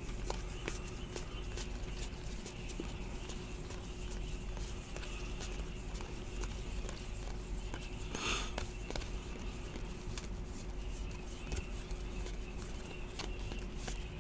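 Trading cards flipped through one at a time in the hands: faint clicks and slides of card stock against card stock, over a faint steady hum, with one brief louder rustle about eight seconds in.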